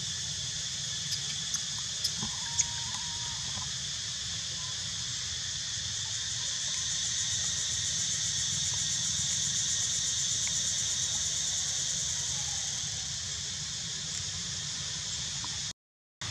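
Steady high-pitched drone of an insect chorus, growing louder through the middle, with a few faint clicks and a brief faint squeak early on. It cuts off suddenly near the end.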